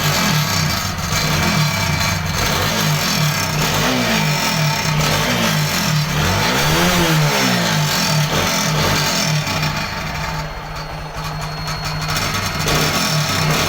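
TVS Apache RTR 200 4V's single-cylinder engine idling and given several quick blips of the throttle, the highest about halfway through. The bike has the silencer noise problem, a fault inside the silencer that has to be cured by welding.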